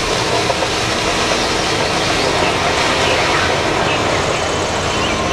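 A giant mining dump truck tipping its load: rock and ore sliding and pouring out of the raised steel bed in a steady, loud rush.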